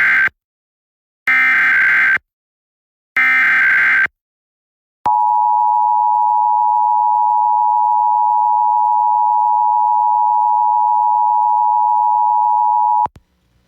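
Emergency Alert System test: three short bursts of the digital SAME header, a warbling data screech, the first already under way. About five seconds in, the steady two-tone EAS attention signal starts and sounds for about eight seconds before cutting off abruptly.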